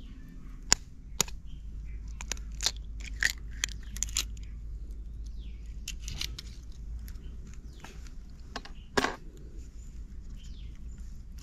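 Eggs tapped and cracked against a stainless steel bowl of marinated chicken, making an irregular run of sharp clicks and taps. The loudest tap comes about nine seconds in.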